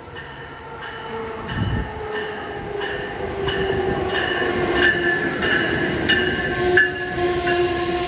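Amtrak Northeast Regional train behind an ACS-64 electric locomotive coming into the station and passing close, growing louder throughout. A squealing whine sags slightly in pitch, with sharp wheel clicks repeating about every two-thirds of a second.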